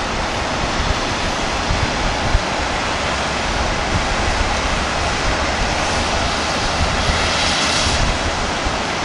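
Steady distant rumble of the Venice Simplon-Orient-Express passenger train passing, blended with an even outdoor hiss.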